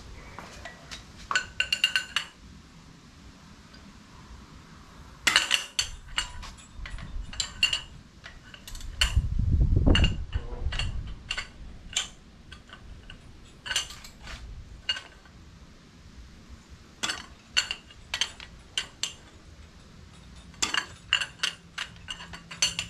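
A hand ratchet and socket on the flywheel bolts of a Subaru EJ257 engine hanging from a hoist, giving irregular sharp metallic clicks and clinks. A dull low rumble comes about nine to eleven seconds in. The engine crank turns over under the wrench, so the bolts will not break loose.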